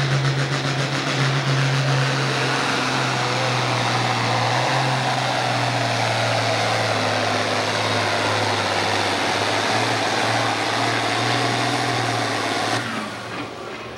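Farm-stock pulling tractor's diesel engine running flat out under full load while dragging the weight-transfer sled, a loud steady drone whose pitch sags slightly midway. The engine note drops away suddenly near the end as the pull stops.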